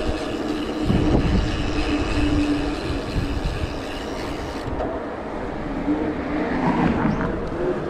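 Wind rushing over the microphone and tyre noise from a mountain bike rolling along an asphalt road, a steady, even rush with a low rumble.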